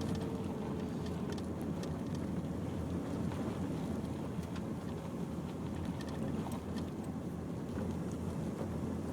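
Steady low rumble of a car's engine and tyres, heard from inside the cabin while driving on a rough unpaved track, with scattered light ticks and clicks.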